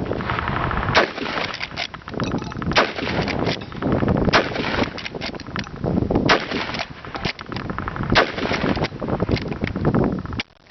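Rapid-fire rifle shots from a .303 British Lee-Enfield No. 5 Mk I Jungle Carbine worked as fast as possible in 'Mad Minute' style. About five loud reports come roughly two seconds apart, with fainter shots and clatter between them.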